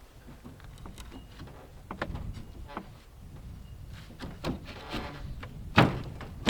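Scattered light clicks and knocks of hand work on wooden and metal parts, over a low steady rumble, with a sharper, louder knock near the end.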